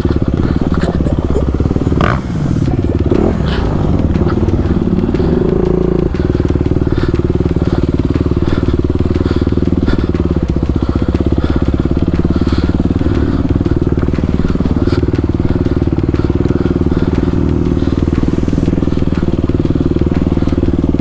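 Dirt bike engine running at low, fairly steady revs while the bike crawls over rocky ground, with brief changes in the engine note about two seconds in and again around six seconds, and a few short clicks and knocks.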